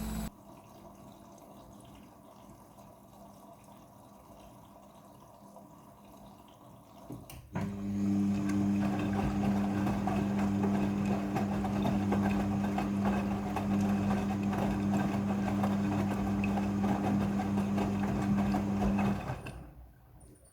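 Midea front-loading washing machine working through its cycle: a low hiss, a click about seven seconds in, then a steady electric hum with water rushing through it for about eleven seconds, fading out near the end.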